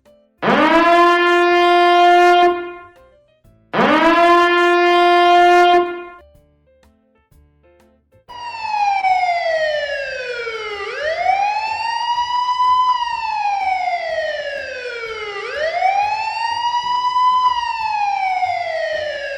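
Two short siren blasts, each sweeping quickly up to a steady held tone for about two seconds, then after a short pause a wailing siren that glides slowly down and back up in pitch, about four and a half seconds per cycle.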